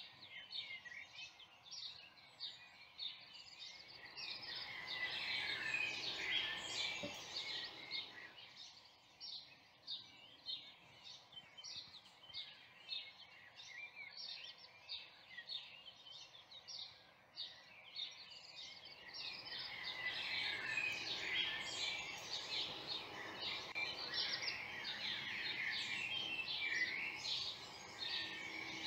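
A dense chorus of songbirds chirping and singing, many short calls overlapping, thickening a few seconds in and again from about two-thirds through.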